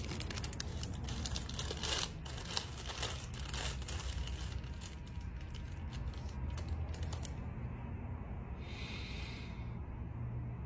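Plastic zip-top bag crinkling and crackling as it is handled and opened, many small crackles for about seven seconds. Near the end comes a sniff lasting about a second.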